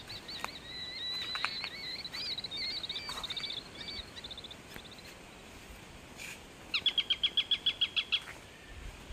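Birdsong: a warbling whistled song for the first four seconds or so, then a rapid run of about a dozen quick, evenly spaced notes lasting about a second and a half near the end.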